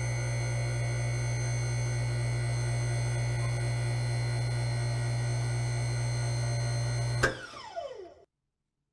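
Sound effect of a motorised steel safe door sliding shut: a steady low machine hum with a few fixed higher tones, then a sharp clunk about seven seconds in and a falling whine that dies away within a second.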